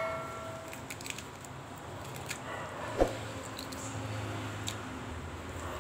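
Quiet handling of a raw crab being pulled apart by hand over a stainless steel plate. The plate's metallic ring fades out within the first second, and a single sharp knock comes about three seconds in.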